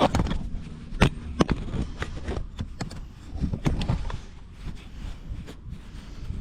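Irregular sharp knocks and clicks of handling and tools, a dozen or so spread over several seconds, over a low steady hum.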